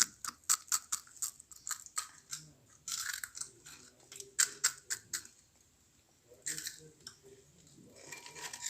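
Kellogg's Chocos Fills cereal pillows, crisped in a microwave, being crunched: a quick irregular run of sharp crisp cracks, pausing briefly about two-thirds of the way through before a few more. The crunchy sound shows the once-soft cereal has turned crisp again.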